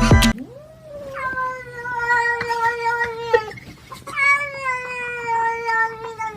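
A cat yowling: two long, drawn-out meows, the first about three seconds and the second about two, each holding a steady pitch that sags slightly at the end.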